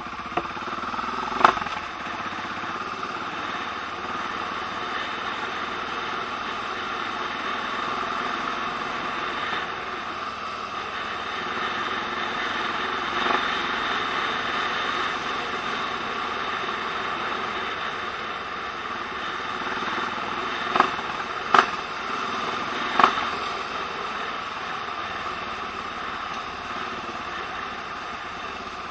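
Trail motorcycle engine running steadily while riding a dirt track, with a few sharp knocks, one about a second and a half in and three more close together near the end.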